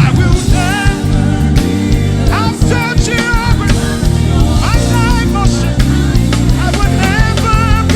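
Live gospel praise-and-worship band music: a full band with drum kit and bass under a wavering lead melody.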